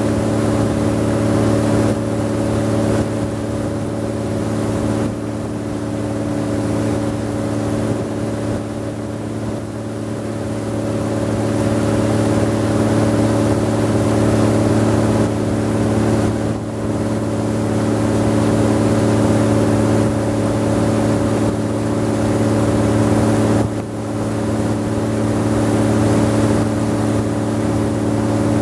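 A wooden river boat's engine running steadily under way, a noisy, constant drone, dipping briefly twice in loudness.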